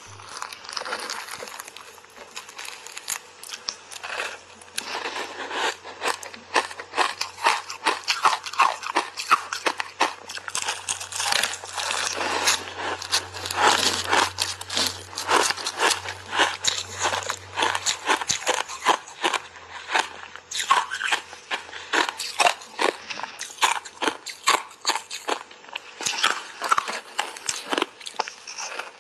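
Refrozen ice bars coated in matcha tea powder being bitten and chewed in big bites, close to a clip-on microphone: a long, rapid, irregular run of sharp crunches.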